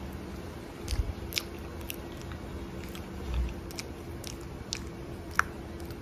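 A person chewing a mouthful of banana: scattered short mouth clicks and smacks, with two low thumps, one about a second in and one a little past three seconds, over a faint steady hum.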